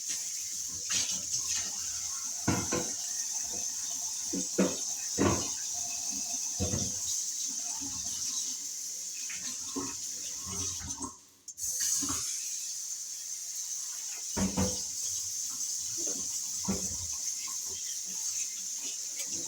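Kitchen tap running into a sink during dishwashing, with scattered knocks and clinks of dishes and utensils. The water stops briefly about halfway through, then runs again.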